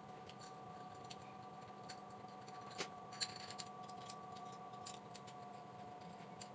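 Light clicks and taps of small metal parts, such as screws and two-hole slot nuts, being handled and fitted during assembly of a mini metal machine. Two sharper clicks come near the middle. A faint steady hum runs underneath.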